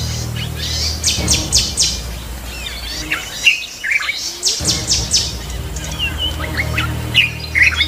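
Several birds chirping and calling, with fast repeated trills and short sliding notes, over a low steady hum that drops out for about a second midway.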